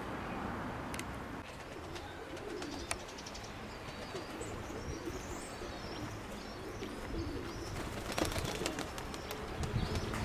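Domestic pigeons cooing in low, wavering calls, with high chirps from other small birds in the middle.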